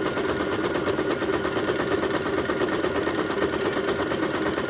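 Elna 120 sewing machine running steadily at speed, sewing a test stitch pattern to check the machine's stitching accuracy.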